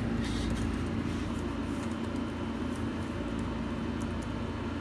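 Steady low hum of background noise, with a few faint clicks.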